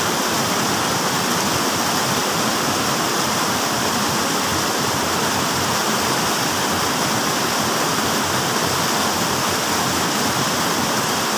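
Stream water rushing over a small rocky cascade: a steady wash of white water.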